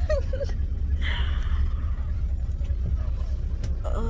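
Steady low rumble of a Greyhound bus on the move, its engine and road noise heard inside the passenger cabin, with brief faint voices.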